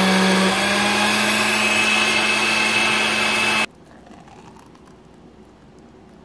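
Countertop blender running at a steady speed, blending a protein shake. Its hum steps up slightly about half a second in, and the motor cuts off abruptly after nearly four seconds.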